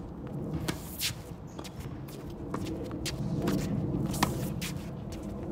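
Tennis rally on an outdoor hard court: the racket strikes the ball, with ball bounces and quick footsteps on the court in between. The sharpest hit comes just after four seconds in.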